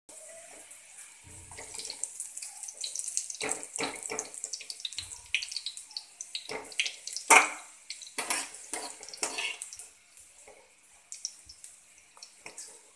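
Oil sizzling in a kadhai as fried onions are skimmed out, with a metal slotted skimmer scraping and clinking against the pan again and again, loudest about seven seconds in. The sizzle and scraping die down over the last few seconds.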